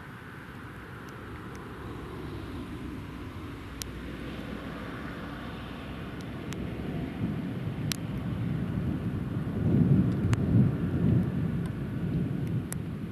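Thunder rumbling, building slowly and peaking loudest about ten seconds in, with a few faint sharp clicks over it.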